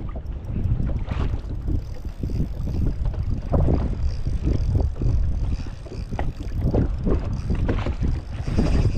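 Wind buffeting the microphone on open water, with small waves slapping irregularly against a boat hull.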